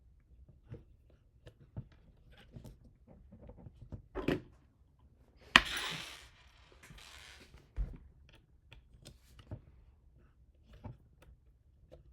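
Hands handling parts and tools while assembling a 3D printer frame: scattered small clicks, taps and knocks. There is a sharp knock about five and a half seconds in, followed by a short rustling scrape, and a dull thud near eight seconds.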